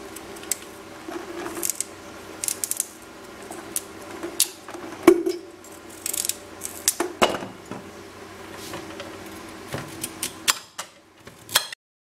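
Irregular clicks, knocks and clatter of a carrot handled against an electric kettle's metal rim and lid, over a steady low hum. The sound cuts off suddenly near the end.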